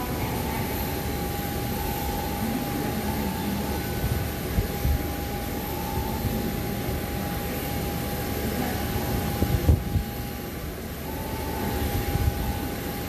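A parked Boeing 737 airliner's auxiliary power unit running with a steady whine over a constant rushing noise. A few low bumps of wind on the microphone come about four seconds in and again around ten seconds.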